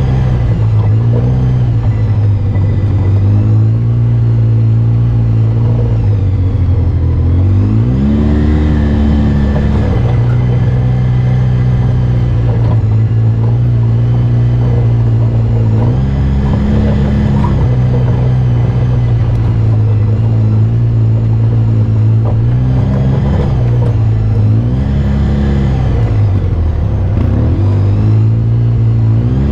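Off-road UTV/ATV engine running on a trail ride, its pitch mostly steady and dropping then climbing back several times as the throttle is eased and reapplied.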